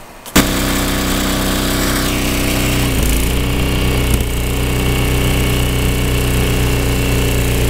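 Snow blower's small engine running steadily, cutting in suddenly just after the start, with its pitch dipping briefly twice, around three and four seconds in.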